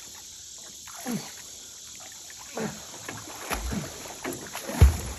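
Water splashing and swishing around a small boat as a swimmer tows it through a pond, with a couple of low thumps near the end.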